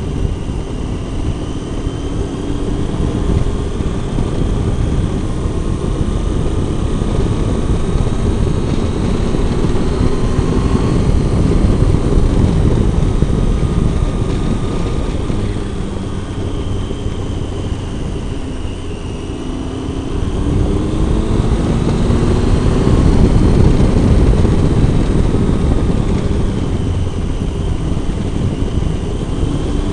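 Triumph Tiger 800's three-cylinder engine pulling the motorcycle along a winding road, under heavy wind and road rumble. Its pitch sinks as the bike slows about two-thirds of the way in, then climbs again as it accelerates.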